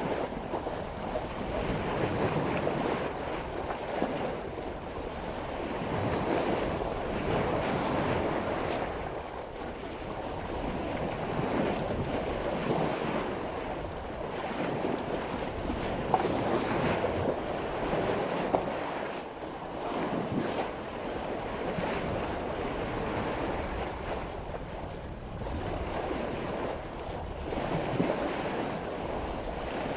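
Water rushing and splashing along a sailboat's bow as the hull cuts through ocean waves at about 5 knots, swelling and easing every few seconds with the swell. Wind buffets the microphone.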